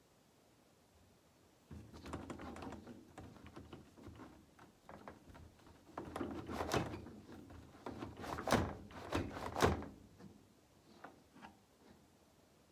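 Glass sliding door being tugged and rattled at its handle from outside: a run of irregular knocks, thunks and rattles starting about two seconds in, with the loudest sharp clunks in the second half, then a few faint taps.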